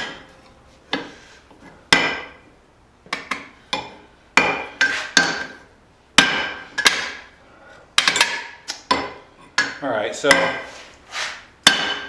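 Hand hammer blows on a steel hammer head on an anvil, about twenty strikes at an uneven pace, some in quick runs and some after short pauses. Each blow rings with a bright metallic tone.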